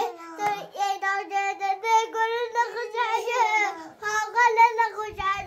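A young child singing in a high voice, a sung phrase broken into short syllables.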